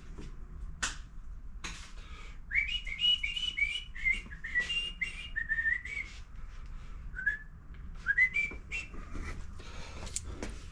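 A person whistling a tune: a run of quick short notes stepping up and down in pitch for several seconds, with a couple of knocks and clatters in the first two seconds and near the end.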